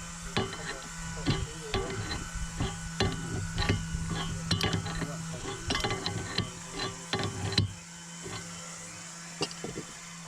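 Irregular clicks and knocks of tools on metal, a few a second, as a new propeller is tightened onto its shaft; they stop about three-quarters of the way through, leaving only a couple of clicks near the end. A steady low hum sits underneath.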